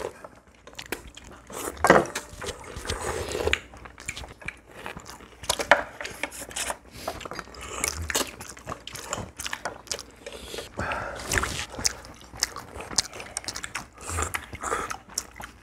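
Several people eating at a table: chewing and biting, with scattered short clicks of chopsticks and spoons against ceramic bowls.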